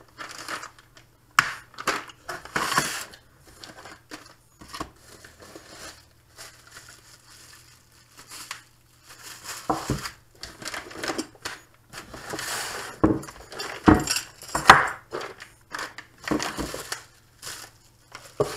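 Plastic bags and bubble wrap crinkling and rustling as packaged exhaust-valve parts are unpacked from a cardboard box, with several sharp knocks as the parts are set down on a wooden workbench.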